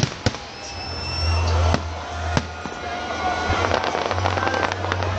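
Aerial fireworks bursting overhead: sharp bangs right at the start and about a quarter second later, two more about two seconds in, then a spell of crackling from glittering stars near the end.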